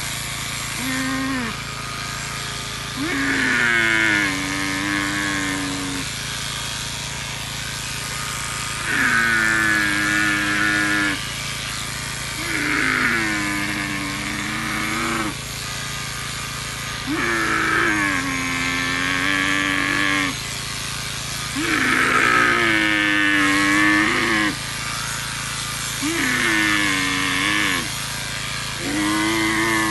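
A camel groaning in long, bending growls roughly every four seconds while it is shorn, over the steady buzz of electric shearing clippers cutting its wool.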